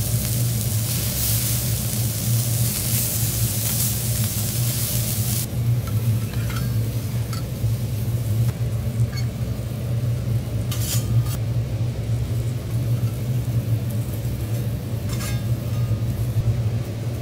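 Food sizzling on a steel teppanyaki griddle, cutting off abruptly about five seconds in. After that come scattered scrapes and clinks of a steel spatula and fork on the griddle plate, over a steady low hum.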